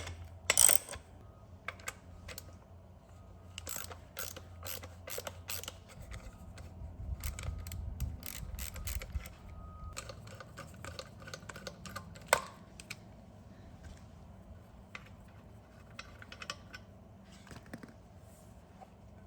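Socket ratchet clicking in short runs, mixed with small clicks and knocks of tools and parts being handled, as tight fasteners are worked loose. One sharper knock comes about twelve seconds in.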